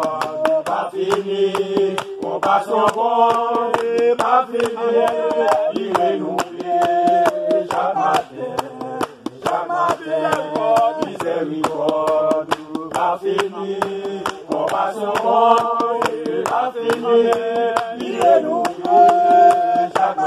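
A prayer group of men and women singing a hymn together, with steady rhythmic hand clapping on the beat.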